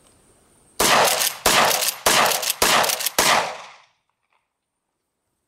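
Remington 870 pump-action 12-gauge shotgun with a clamp-on muzzle brake firing double-aught buckshot: five shots in quick succession, about 0.6 s apart, each with a short ringing tail, after which the sound cuts off.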